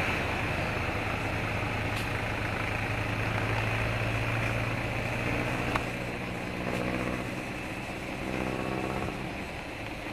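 Motor vehicle engine running steadily with a low hum, with a couple of faint clicks.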